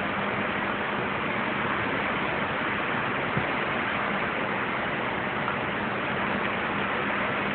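Steady rushing of wind and sea passing the open deck of a moving cruise ship, with a steady low hum underneath.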